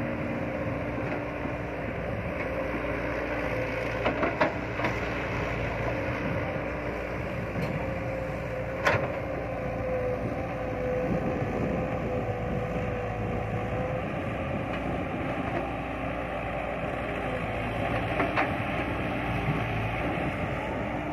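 Caterpillar 312B hydraulic excavator working, its diesel engine running steadily under digging load with a steady whine over it. A few sharp knocks of the bucket and boom, the loudest about nine seconds in.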